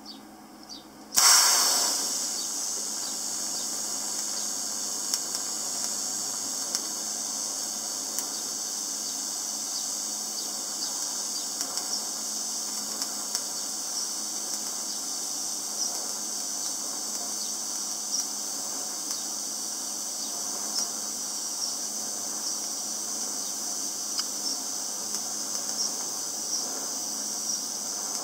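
TIG welding arc on steel, striking up about a second in with a sudden loud burst, then running as a steady high-pitched hiss.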